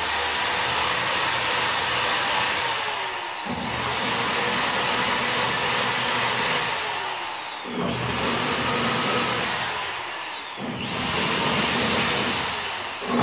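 Handheld power drill running at high speed as a blunted bit clears POR-15 coating out of the spot-weld holes in a steel cowl panel. Its high whine runs in stretches of three to four seconds; three times it briefly slows, gliding down in pitch, then winds back up.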